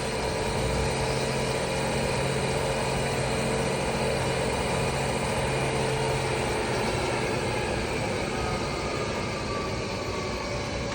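Bridgeport Series II vertical milling machine's 4 hp spindle running steadily at its 3500 rpm top speed, nice and smooth: a steady hum with several tones. Partway through, the lowest tone cuts out and the higher tones sag slightly in pitch.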